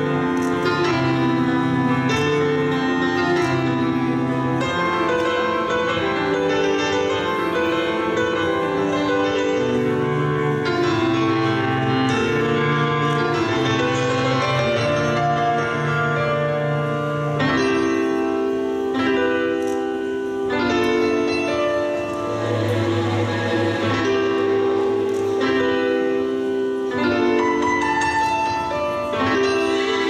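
Instrumental music with piano playing held chords that change every second or so, the chords held longer in the second half.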